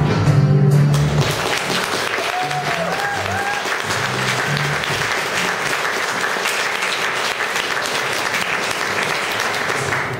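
Audience applauding over background music, the clapping dense and even; it cuts off suddenly near the end.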